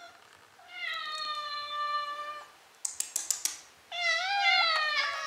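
Domestic cats meowing: two long, drawn-out meows, the first nearly level in pitch and the second rising and then falling. Between them come a quick run of five or six sharp clicks.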